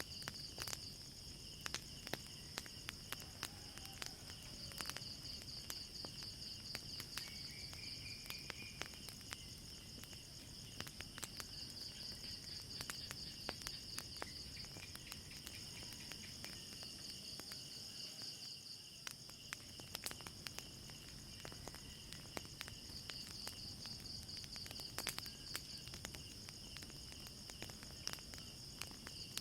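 Crickets chirping in a steady high pulsing trill, with frequent sharp crackles and pops from a wood fire.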